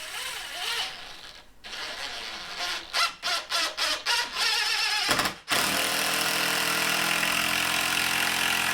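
Power drill driving a 3-inch construction screw at an angle (toenailing) into a wall stud: short trigger bursts as the screw starts, then a steady run of about three seconds until it seats and the motor stops abruptly.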